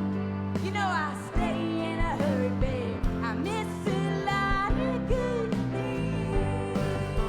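Live country-rock band music: drums and guitars, with a lead line that slides up and down between notes.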